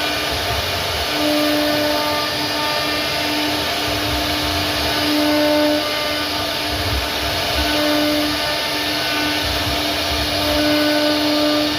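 CNC router spindle cutting wood: a steady high hum over a rushing noise, waxing and waning slightly as the bit works.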